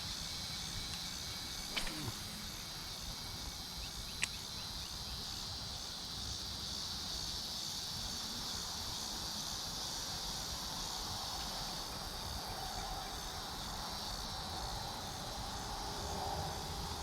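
Insects chorusing in a steady, high-pitched drone, with two sharp clicks about two and four seconds in.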